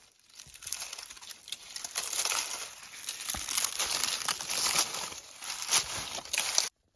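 Dry palm leaves rustling and crackling as they are crumpled and stuffed by hand under an iron kadai as fuel for the fire. It cuts off suddenly near the end.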